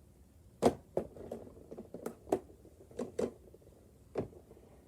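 Plastic fidget toys being handled: an irregular series of about seven short clicks and knocks, the loudest about half a second in.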